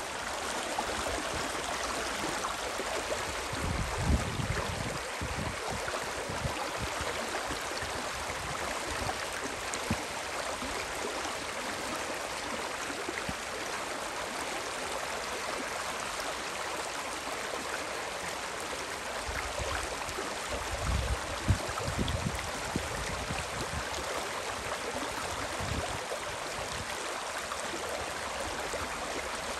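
Water of the Spree river rushing, a steady even hiss, with brief low rumbles about four seconds in and again around twenty seconds in.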